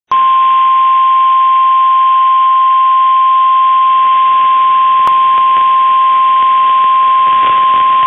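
Emergency alert attention signal: a single steady tone near 1 kHz, the 1050 Hz warning alarm tone of NOAA Weather Radio, over radio hiss, with one brief click about five seconds in. It announces a severe thunderstorm warning broadcast.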